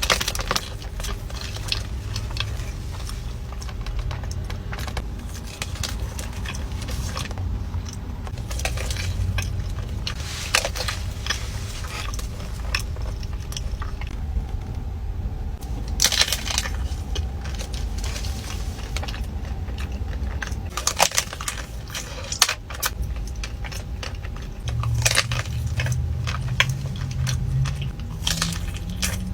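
Close-up eating sounds of desserts: crisp crunches, clicks and clinks of cutlery or packaging, scattered irregularly over a steady low rumble.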